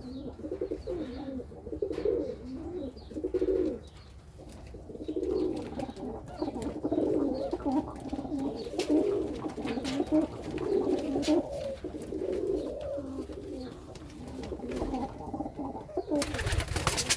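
Serbian highflyer pigeons cooing over and over, low rolling coos. A short loud burst of noise comes about a second before the end.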